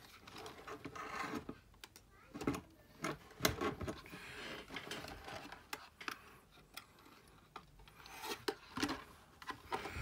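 Hands handling a Traxxas Summit 1/16 RC truck: plastic rubbing and rustling with scattered sharp clicks as parts are fitted and the plastic body shell is set down onto the chassis.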